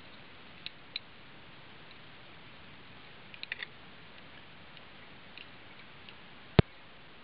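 A few faint clicks of fly-tying work at the vise over a steady low hiss, then a single sharp snip of scissors trimming the rabbit-fur strip tail, about six and a half seconds in.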